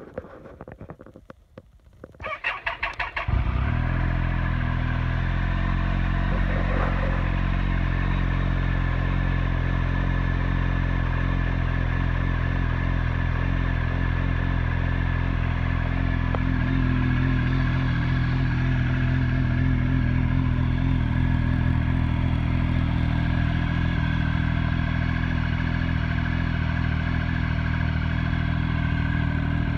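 2001 Triumph Speed Triple 955i's fuel-injected 955 cc three-cylinder engine cold-starting after sitting overnight. The starter cranks for about a second, the engine catches about three seconds in, and then it idles steadily.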